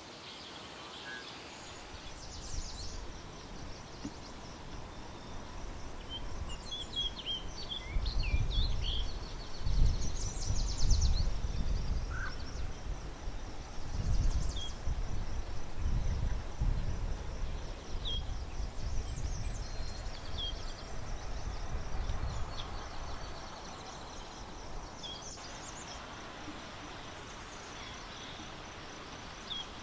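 Outdoor ambience by the water: scattered short bird chirps over a faint, high, pulsing trill, with an irregular low rumbling noise through the middle.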